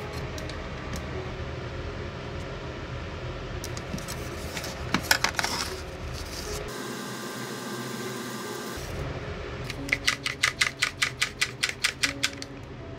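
A one-handed bar clamp being tightened by repeated squeezes of its trigger, giving a fast run of ratcheting clicks, about six a second, for a couple of seconds near the end, as it clamps a wooden handle onto a knife tang. A few lighter clicks come about five seconds in.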